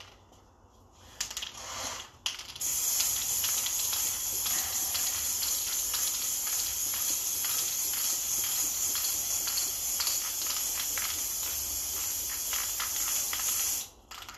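Aerosol spray can of gray primer spraying: a couple of short bursts, then a steady hiss for about eleven seconds that cuts off near the end.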